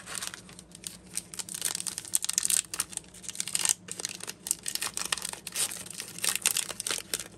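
Foil trading-card pack wrapper crinkling and tearing in irregular crackles as the pack is torn open and handled.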